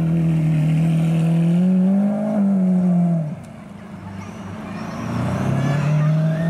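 Lamborghini Aventador SV's V12 engine pulling away, revs climbing, then dropping off sharply about three seconds in as the throttle is lifted. An engine note builds again from about five seconds in and holds steady near the end.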